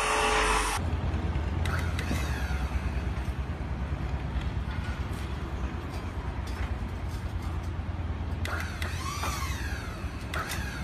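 Steady low drone of the wall-panel installation machine's motor running, with a few short rising-and-falling chirps over it about two seconds in and again near the end. A loud hiss in the first second cuts off suddenly.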